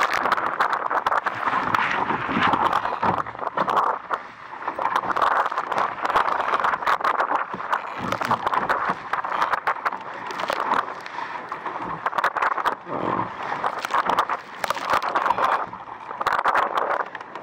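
Water splashing and slapping against the hull of an RS Aero sailing dinghy moving fast through waves, a continuous rush of spray broken by many irregular knocks.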